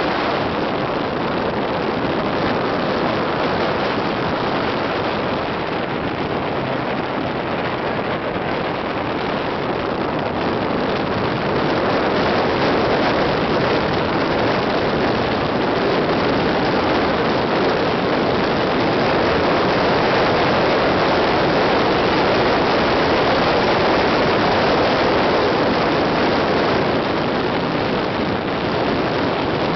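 Mazda Miata driving at speed: a steady rush of wind and road noise with no distinct engine note. It grows a little louder about twelve seconds in.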